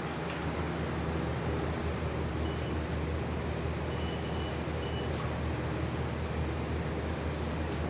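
A steady low machine hum under a constant background hiss, with no distinct knocks or clicks.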